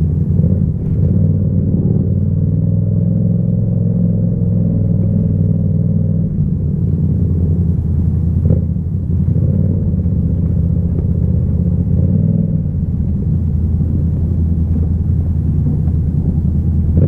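Yamaha MT-07's parallel-twin engine running at low revs while riding slowly, its exhaust note steady with changes in pitch about six seconds in and again around twelve seconds.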